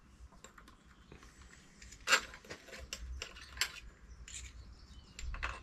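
Small metal bicycle headset and steerer parts being handled and fitted at a mountain bike's head tube: scattered light clinks and clicks, with a sharper clink about two seconds in.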